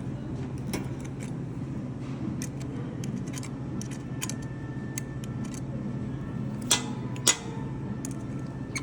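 Light metallic clicks and ticks of an espresso machine's shower screen and its screw being fitted and tightened under the group head, with two sharper clinks near the end, over a steady low hum.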